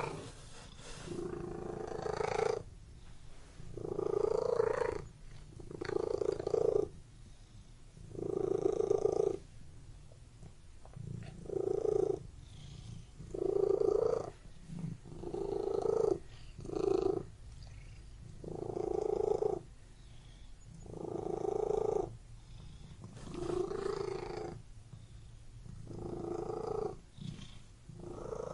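Domestic cat purring in a steady rhythm, the purr swelling and easing about once every two seconds with each breath in and out.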